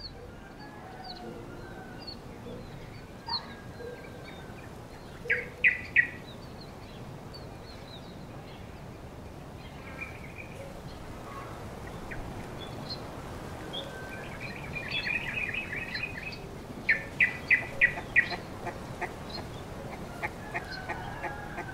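Birds chirping, with short high chirps throughout. Louder bursts of quick repeated calls come about five seconds in and again in the second half.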